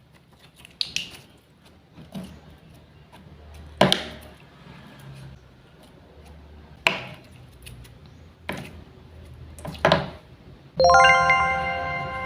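Wooden toy fruit and a wooden knife knocking and tapping sharply, six separate knocks spread over several seconds. Near the end a bright, clinking ring starts and keeps sounding.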